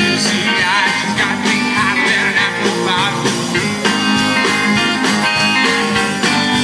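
Live band playing amplified music: a singer holding notes with wide vibrato over electric guitar, bass and drums.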